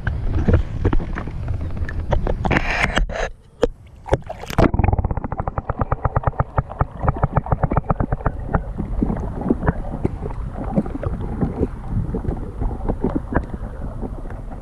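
Wind buffeting the microphone over water slapping and knocking against a small boat's hull, with many rapid irregular knocks. A brief lull comes about three and a half seconds in.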